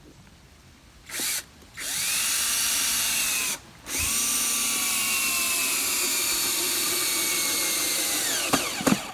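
Cordless drill driving a screw into a wooden plank: a short blip of the motor, then a run of about two seconds, a brief pause, and a longer run of about four and a half seconds. The whine sinks slowly in pitch as the screw bites deeper and winds down near the end.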